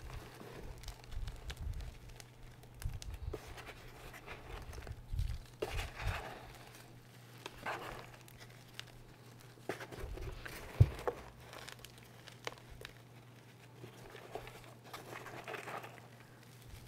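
Hands crushing and raking crumbled reformed gym chalk and chalk powder: irregular soft crunching and gritty, powdery rustling, with one sharp crack about two-thirds of the way through. A faint steady low hum lies underneath.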